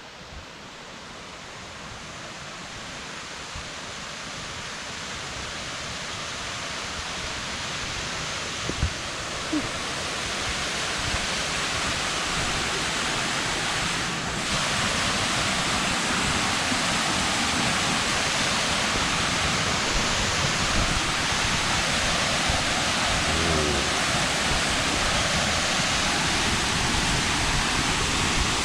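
Rushing water of a waterfall, a steady wash of white noise that fades up gradually over the first half and then holds level.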